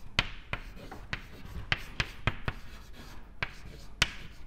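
White chalk writing on a blackboard: a string of sharp, irregular taps and short scrapes as the letters are formed, about nine in all, the loudest about four seconds in.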